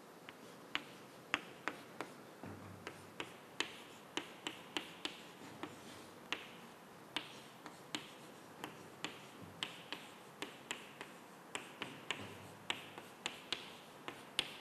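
Chalk tapping and scratching on a chalkboard while an equation is written: an uneven run of sharp clicks, two or three a second, each stroke followed by a short scrape.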